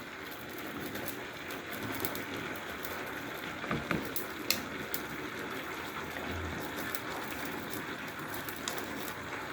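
Pot of beans boiling on the fire: a steady bubbling hiss with a few small clicks.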